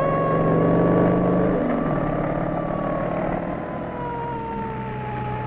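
Cartoon engine sound effect of a motor vehicle driving: a low steady drone that shifts about two seconds in, under a sustained high whine that slowly falls in pitch.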